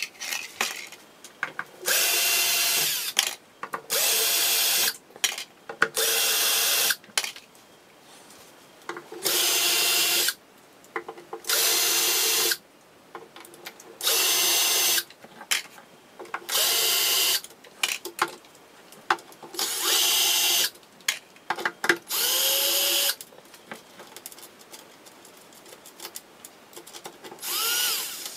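Cordless drill-driver backing screws out of a metal equipment case: about ten short runs of a second or so, each starting with a rising whine as the motor spins up, with clicks and handling noise between them as screws are taken out.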